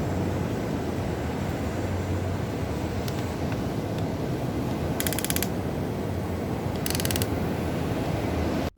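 Huina RC excavator's small electric motors and gears working as it digs sand, with creaking and a steady low rumble, and two short bursts of rapid clicking about five and seven seconds in.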